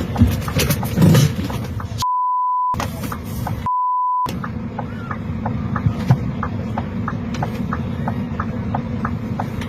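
Censor bleeps: a steady 1 kHz tone replacing the audio twice, each for well under a second, over raw on-scene sound with a low rumble and, after the second bleep, a run of short regular clicks about three a second.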